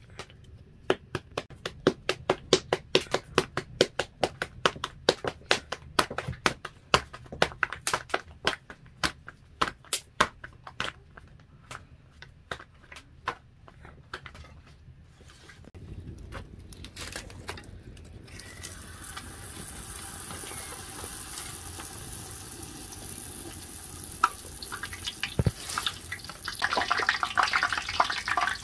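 Dough slapped and patted between bare hands in quick, sharp claps, about three a second, for the first ten seconds or so. Then a steady hiss builds, and near the end a wooden stick stirs and scrapes wet dough in a metal pot.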